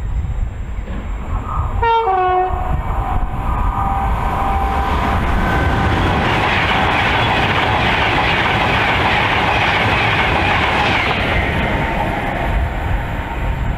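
Avanti West Coast Class 390 Pendolino electric train sounding its horn for a few seconds about two seconds in, then passing at speed, loudest in the middle and fading away near the end.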